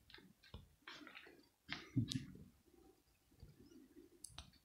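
Faint soft rustling and a few clicks from a cat shifting and settling in a plush bed, over an irregular low rumbling. The loudest rustle comes about two seconds in.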